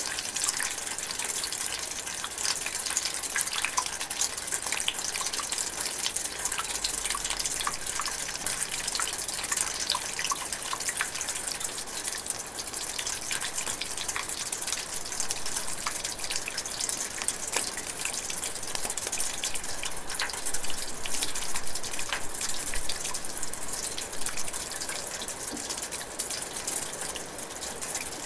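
Light rain drizzling: a steady hiss with many small drops ticking all through.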